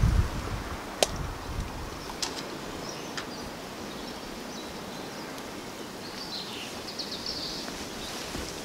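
Outdoor garden ambience: a steady background hiss with a few sharp clicks in the first three seconds and faint bird chirps near the end.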